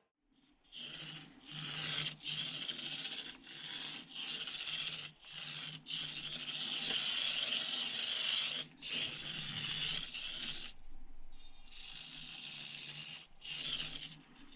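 Turbo Racing 1/76 Mini RC car's tiny electric motor and gear drivetrain whirring with a raspy, buzzing sound, in spurts that stop and start every second or so as the throttle is worked.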